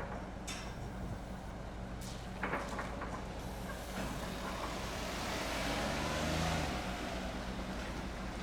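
Ferry engine running with a steady low hum. There are a few short clatters in the first three seconds, and a rushing swell of noise builds and peaks about six seconds in.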